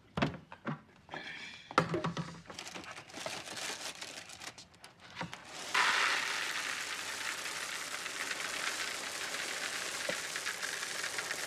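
Knocks and crinkling of a cereal box and its inner bag being handled, then about six seconds in, dry Cap'n Crunch cereal starts pouring into a bowl in a steady rattling stream.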